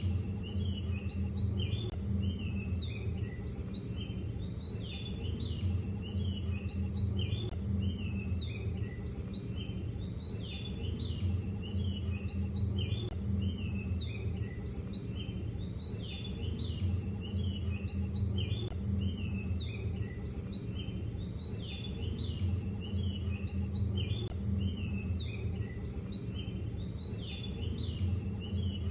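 Many small birds chirping continuously, short overlapping calls, over a steady low rumble.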